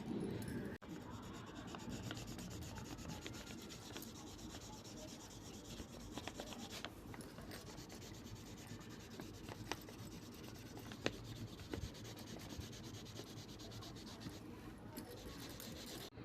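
Faint, steady scratching and rubbing of a drawing tool on paper, with a few light ticks, the sharpest about eleven seconds in.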